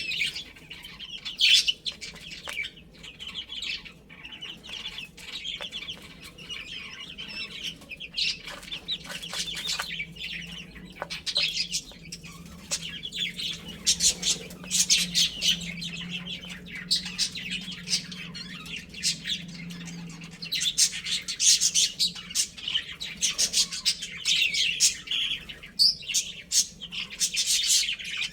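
Chicks peeping continuously, many short high chirps overlapping, with a low steady hum through the middle.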